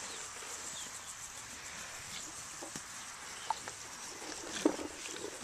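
Pigs rooting in a grass pasture, giving a few short grunts, the loudest about four and a half seconds in, over a steady outdoor hiss.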